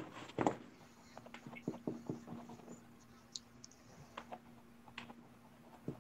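Paint sponge dabbing paint onto a canvas: irregular light taps, several a second, over a faint steady hum.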